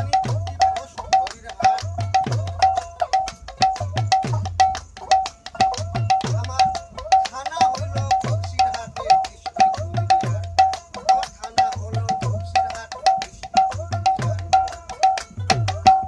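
A hand drum played in a fast, steady rhythm. Deep booming strokes drop in pitch, and short, sharp high strokes fall about twice a second, with quick clicking strokes between them.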